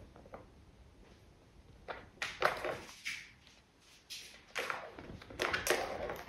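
Plastic tiered ball-track cat toy rattling as kittens bat at it: balls clatter round the tracks and paws knock the plastic, in several short bursts from about two seconds in.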